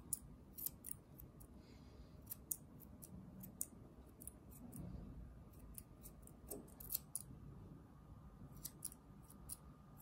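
Grooming scissors snipping through a Bichon Frise's fur around the head: many short snips at an uneven pace, some in quick pairs.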